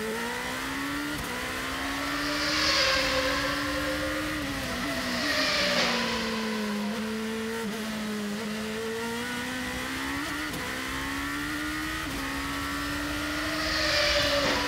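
Onboard sound of a 2008 GP2 car's 4-litre V8 at racing speed. The engine note climbs through the gears, drops with downshifts for a corner about five seconds in, then pulls up again through further upshifts, with three brief louder rushes of hissing noise.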